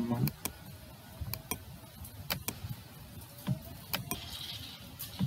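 Computer mouse clicking: a string of sharp, irregularly spaced clicks.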